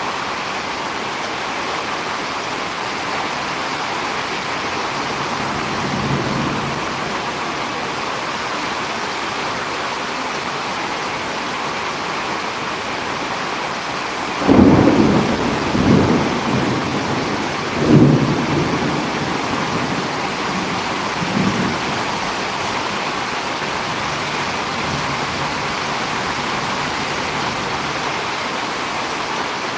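Steady heavy rain of a storm, with thunder rumbling about halfway through: a cluster of loud low peals, then a weaker one, after a faint rumble earlier on.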